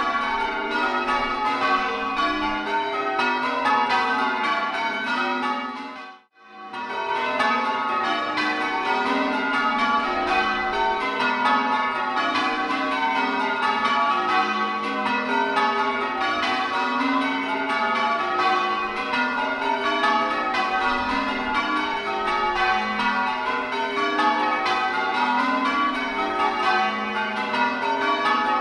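A ring of eight church bells, tenor in F sharp, rung full-circle with the bells striking one after another in a continuous sequence. About six seconds in the sound cuts out for under a second, then the ringing comes back.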